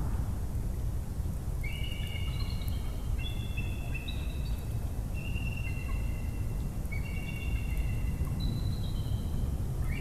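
Bald eagles chortling: runs of quick high piping calls at a few steady pitches, overlapping as if two birds call together, starting a couple of seconds in and going on to the end, over a steady low rumble.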